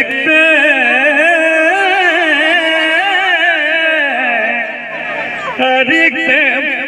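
A man's voice singing one long held note with heavy vibrato into a microphone, amplified, for about five and a half seconds, then breaking into shorter sung or chanted phrases near the end.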